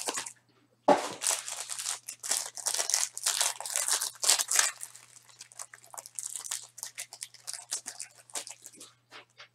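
Foil wrapper of a Panini Absolute basketball card pack being torn open about a second in, then crinkled and crackled as the cards are pulled out. The crinkling thins to scattered crackles in the last few seconds.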